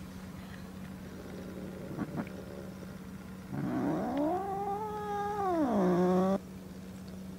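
A domestic cat's long, drawn-out yowl, rising at the start, held, then dropping near the end, about three seconds long: a threat call between two cats meeting for the first time.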